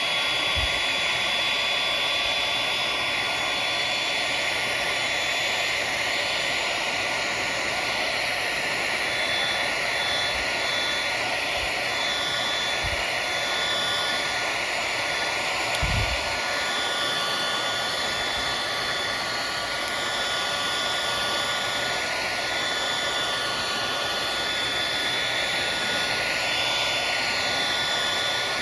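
Electric heat gun running steadily, blowing hot air with a motor whine, used to shrink heat-shrink tubing onto a charging cord. A brief low thump about halfway through.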